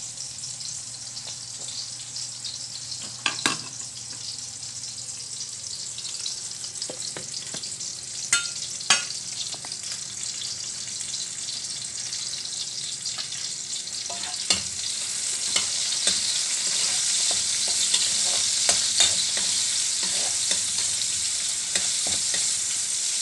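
Chopped white onions sizzling in a little cooking oil in a metal wok as they are sautéed to soften, with a spatula scraping and knocking against the wok as they are stirred. The sizzle grows louder about two-thirds of the way through.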